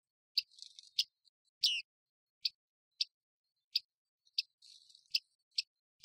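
Bearded reedlings calling: a string of short, sharp, high 'ping' calls, roughly one to two a second, one near the two-second mark slightly longer and falling in pitch, with faint twittering between some calls.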